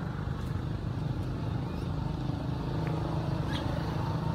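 Steady low rumble of a running motor-vehicle engine, with a few faint high chirps over it.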